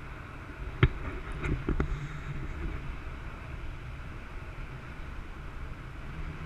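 Steady low rumble of a motorboat's engine, with wind on the microphone. A sharp knock comes about a second in, followed by a couple of lighter knocks.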